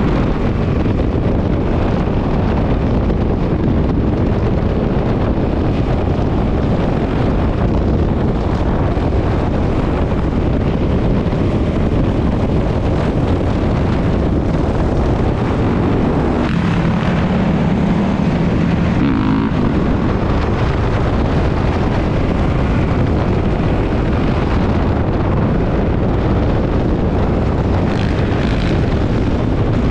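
Dirt bike engine running under throttle while riding at speed, mixed with heavy wind buffeting on the microphone; a steadier, clearer engine note stands out for about three seconds past the middle.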